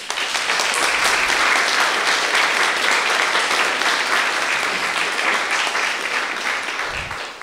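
Audience applauding, a steady patter of many hands clapping that tapers off near the end.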